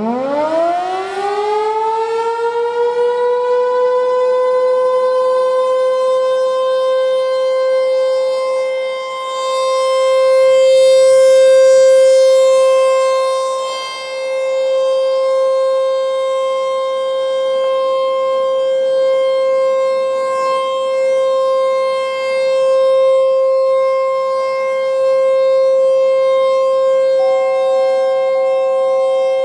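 American Signal Corporation T-128 outdoor warning siren winding up from a low growl to a high pitch over about three seconds, then holding one steady tone: the Alert signal, sounded as a test. Its loudness swells and fades as the rotating siren head sweeps past, loudest about ten to thirteen seconds in.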